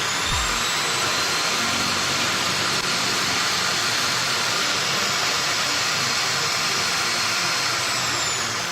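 Angle grinder's electric motor running free at high speed, a steady whine and hiss that slows and falls in pitch near the end.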